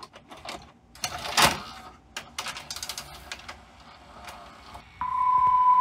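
Samsung VT-1270C VCR's cassette loading mechanism taking in a VHS-size cassette pushed into the front slot: clicks, a clunk about a second and a half in, then a run of fast mechanical ticks as it loads and threads. About five seconds in a steady high tone starts suddenly and holds.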